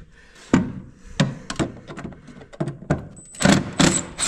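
Irregular sharp clicks and knocks from hand tools working corroded parts of a truck headlight housing loose, about ten in all, the loudest a few near the end.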